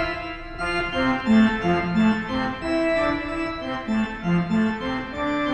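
Pipe organ played staccato, short detached notes stepping up and down at about three or four a second. The notes are played wrist staccato, deliberately exaggerated, with the hand rising from the wrist as a unit.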